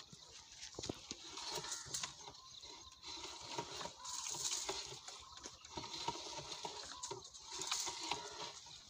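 Irregular scraping and knocking from a long steel delivery pipe being worked by hand, swelling twice, about halfway and near the end. The pipe is being cleared of the bird nests clogging it.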